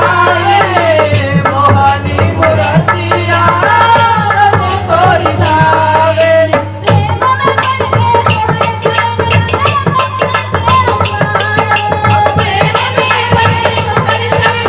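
Women's group singing a Hindi devotional bhajan in kirtan style, accompanied by harmonium, a two-headed hand drum and small hand cymbals keeping a quick, even beat. The singing breaks briefly about halfway through, then carries on.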